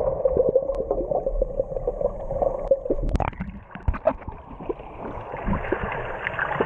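Water gurgling and sloshing, muffled, with many small clicks and pops; about three seconds in there is a sharp splash-like knock and the noise turns brighter.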